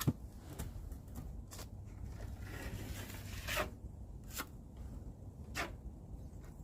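Drywall tools being handled: a sharp knock, then several short scrapes of a taping knife working joint compound.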